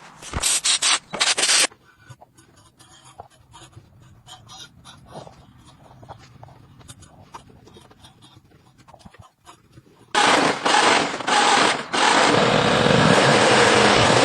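Restoration work on a rusty car body: short loud bursts of scraping or sanding on metal, then faint scattered taps and clicks. About ten seconds in comes a loud, steady, noisy sound of abrasive work.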